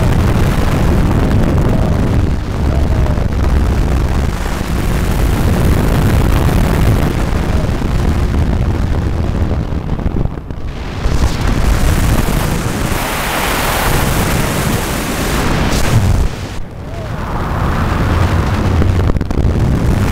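Wind buffeting the microphone in the open seat of a trike ultralight in flight, over the drone of its engine. The rumble eases briefly twice, about halfway through and a few seconds before the end.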